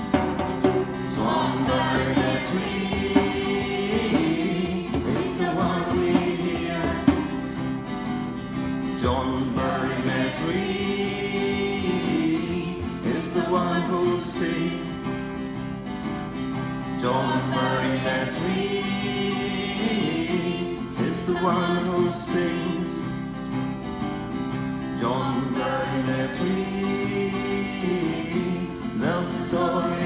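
A group of voices singing a song together, accompanied by a strummed acoustic guitar and a djembe hand drum keeping a steady beat.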